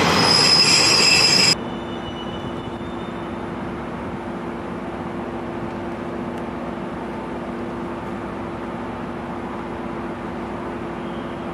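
A train passing close, its wheels squealing against the rails, cut off abruptly after about a second and a half. Then a much quieter steady rail-yard hum with a low drone.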